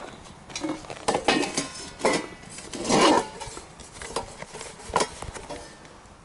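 Metal loaf pan clanking and scraping against a cast-iron Dutch oven as it is lifted out: about half a dozen sharp knocks over several seconds, the loudest a short scraping rattle about three seconds in.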